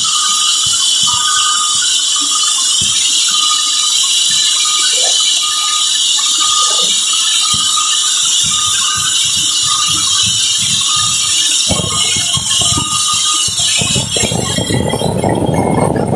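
Sawmill saw cutting through a large teak log, a steady loud hiss. About three quarters of the way in, a heavier, fuller rumble joins it.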